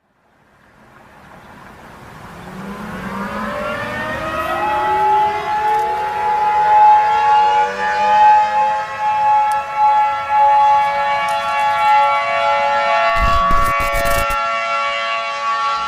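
Civil defense (air raid) siren winding up from silence, its several tones rising in pitch over about five seconds and then holding a steady chord-like wail. A brief crackle cuts through about 13 seconds in.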